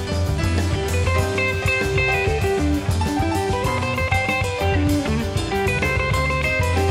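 Background song with guitar and drum kit and a steady beat.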